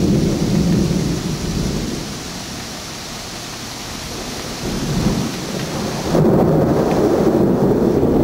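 Wind buffeting a camera microphone: a loud, gusty low rumble that eases off and then builds again. About six seconds in, the higher hiss cuts out abruptly while the rumble grows louder.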